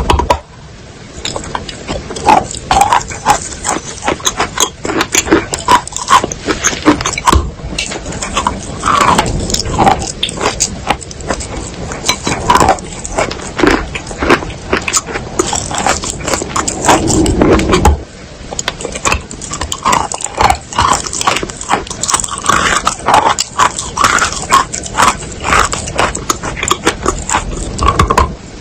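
Close-up crunching of wet chalk: a dense run of quick, crackly crunches, with a brief break about eighteen seconds in before the crunching picks up again.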